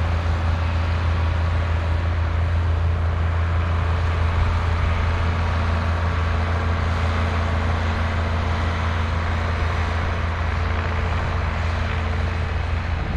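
John Deere tractor engine running steadily while pulling a plough, a deep, even drone that holds the same pitch throughout.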